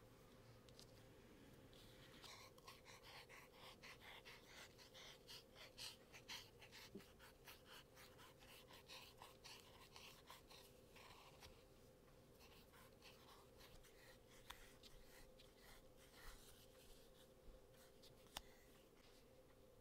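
Very faint soft scratching strokes, about two a second, through the first half, over a steady low hum, with a single sharp tick near the end.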